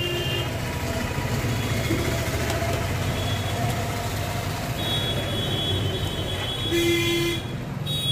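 Road traffic noise with vehicle horns honking: a short horn blast right at the start and another about seven seconds in, over a steady rumble of traffic.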